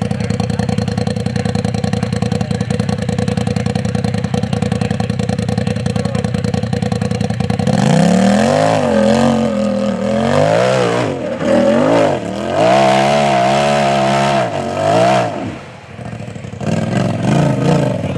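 Rock bouncer buggy's engine running at a steady speed for about eight seconds, then revving hard up and down in quick repeated bursts, with a short drop near the end before it revs again.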